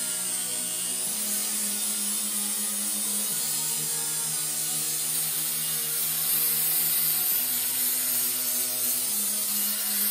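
A power tool running steadily, grinding on metal, under background music whose low held notes change every couple of seconds.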